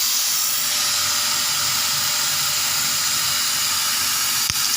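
Laser cutting machine running while it cuts 3 mm melamine plywood: a steady high hiss and whine, with one sharp click near the end.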